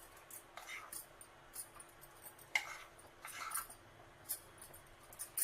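A spoon scooping gram flour and tapping and scraping against a bowl in a few short, scattered clicks and scrapes, the loudest a little over halfway through, over a faint steady hum.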